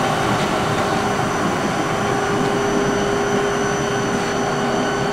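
1990 SMTW H163 plain cylindrical grinder running under power, with its hydraulic table traverse and pick feed working. It makes a steady mechanical hum with one constant mid-pitched tone and faint high whines.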